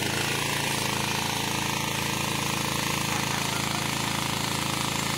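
Electric arc welding on a steel pipe fence joint: the arc's steady, even crackle and hiss, with a steady hum underneath.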